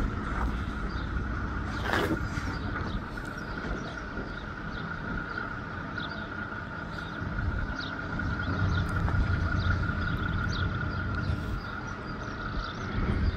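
Outdoor background noise: a low rumble that swells midway, a steady faint high hum, and scattered short chirps.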